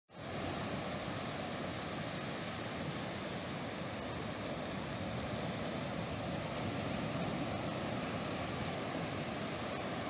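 Pacific Ocean surf breaking and washing up on a sandy beach: a steady rush of waves.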